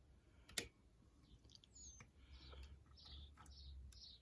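Faint metallic clicks and scrapes of a wire pick working the levers inside a three-lever mortise lock held under tension, with one sharper click about half a second in.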